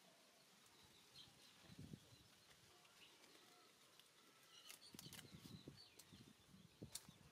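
Near silence: faint outdoor ambience with scattered small bird chirps, and soft rustling with a few light clicks in the second half.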